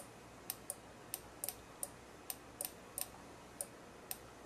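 Faint, sharp clicks at uneven intervals, roughly three a second, over a low steady hiss.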